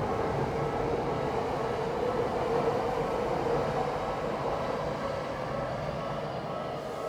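Tokyu Toyoko Line train running past and slowly fading away, with the level crossing's warning bell ringing steadily over it.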